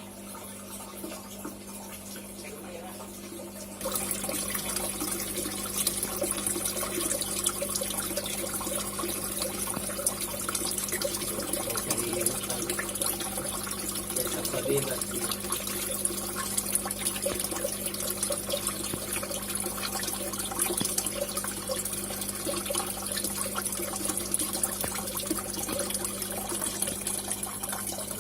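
Water running and splashing, starting abruptly about four seconds in and going on steadily, over a low steady electrical hum.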